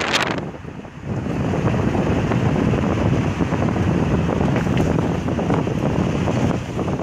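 Wind buffeting the microphone of a phone filming from a moving car: a steady low rumble that dips briefly at the start and runs full from about a second in.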